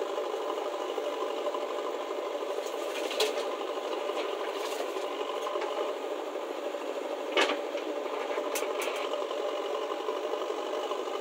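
JCB backhoe loader's diesel engine running steadily while the backhoe arm digs and loads soil, with a few sharp clanks, the loudest about seven seconds in.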